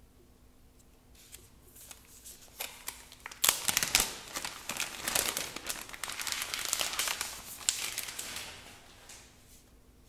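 Crinkly wrapping crackling and rustling as it is handled, starting about a second in, busiest and loudest in the middle, and dying away near the end.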